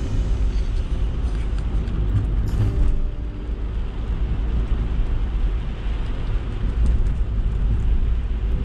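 Steady car-cabin noise while driving on a wet road: a low rumble from the road and engine with an even hiss of tyres on wet asphalt.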